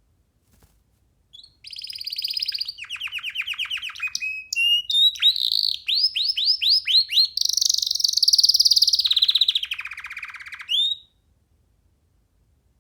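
Young domestic canary singing one long song: a chain of fast trills and rapidly repeated high notes, each run changing pitch every second or so, starting about a second and a half in and stopping near the end.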